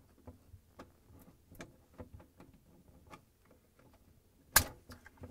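Flathead screwdriver working a plastic wire-harness connector off a refrigerator light-bulb socket: a run of small plastic clicks and scrapes, then one loud sharp snap about four and a half seconds in as the connector comes free.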